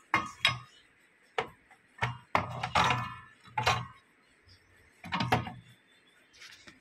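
Handling noise from the open amplifier and the phone: a handful of short, irregular knocks and scuffs with quiet between them, the busiest cluster about two to three seconds in.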